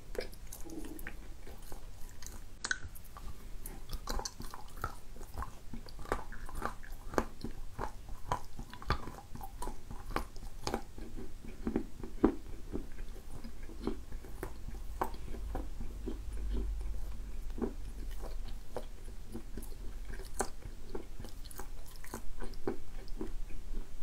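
Close-up chewing of a moist lump of edible clay: soft, sticky mouth sounds with irregular wet clicks, several a second. The wet clay chews without squeaking.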